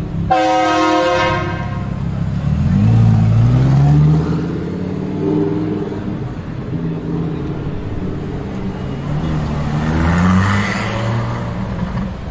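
A car horn sounds for about a second and a half. Then the Lamborghini Huracán Performante's V10 revs and pulls away, its pitch rising in steps as it accelerates. Another engine revs up again near the end.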